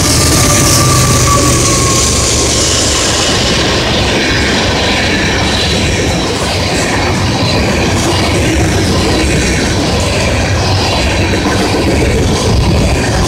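Freight train passing close by. Its BNSF diesel locomotives go by in the first few seconds, louder and lower, and then a long string of tank cars rolls past with a steady noise of wheels on the rails.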